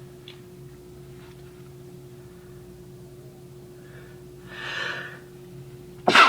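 A person's powder-induced sneeze, let out rather than stifled: a breathy intake about a second and a half before, then one sudden, loud sneeze near the end.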